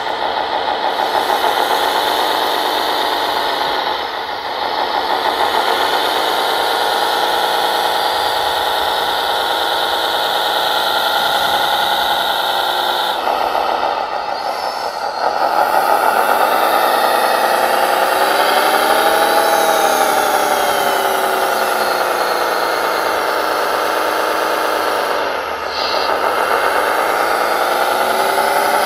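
Remote-controlled ZW370 scale wheel loader running and working: its motor and hydraulics whine steadily, the pitch rising and falling as it drives and moves the bucket. A high steady whine drops out about halfway through.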